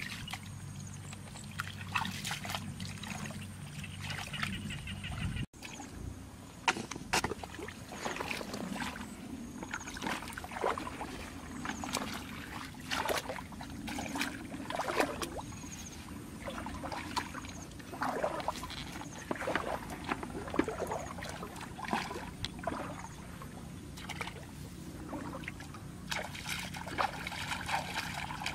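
Irregular sloshing and splashing of feet and hands moving through shallow muddy water, over a steady low hum.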